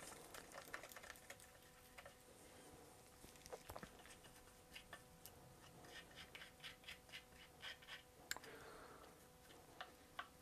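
Faint scratching and light ticks of a small brush handle working glue into a wooden chair joint's mortise and over its tenon, with a cluster of quick ticks in the middle and one sharper click about 8 seconds in.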